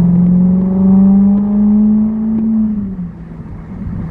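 Ferrari engine and exhaust pulling under acceleration, its pitch climbing steadily for nearly three seconds, then falling away as the revs drop near the end.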